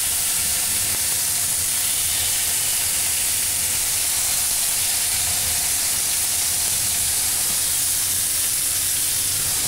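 Pork filet mignon medallions searing in smoking-hot olive oil in a frying pan, a steady sizzle, as more pieces are laid into the pan.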